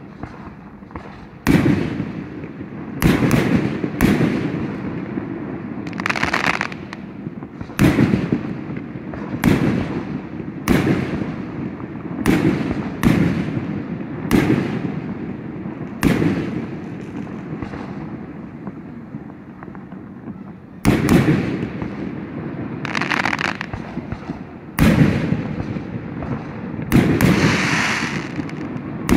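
Aerial firework shells bursting one after another, each bang echoing as it fades, with bursts of crackling after a few of them. The display goes quiet for a few seconds in the middle, then the bangs resume.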